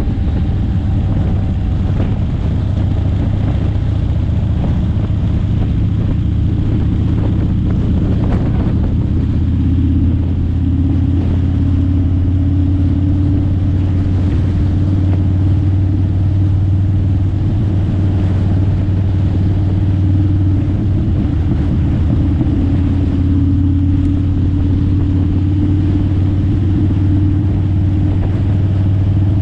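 Road vehicle engine running steadily at cruising speed, a constant low hum over tyre and road noise from the vehicle carrying the camera.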